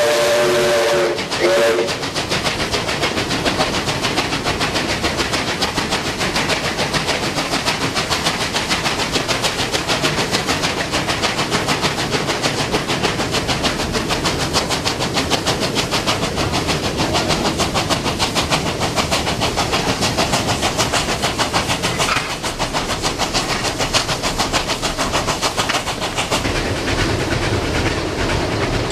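Steam locomotive 5910, a New South Wales 59 class 2-8-2, running at speed: a whistle blast ends about a second in with a short second toot, then a fast, steady beat of exhaust and wheel-on-rail knocks with steam hiss carries on.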